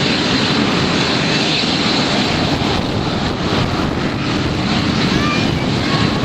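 Aircraft engine noise, a steady loud rumble from a display aircraft in flight.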